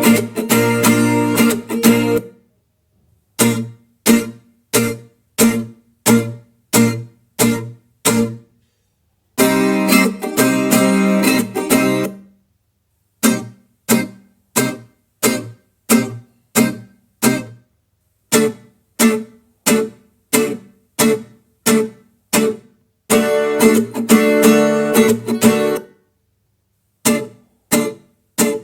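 Reggaeton-pop background music on guitar: short plucked chord stabs in an even beat, broken three times by longer strummed passages, with brief silent gaps between phrases.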